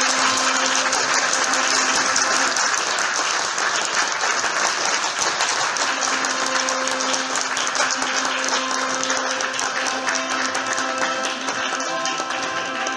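A congregation applauding, a dense steady clatter of many hands, with a few held notes of music underneath.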